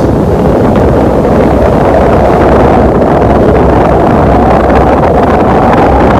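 AquaLink II passenger boat underway: its engines droning steadily with water rushing past the hull, and wind buffeting the microphone.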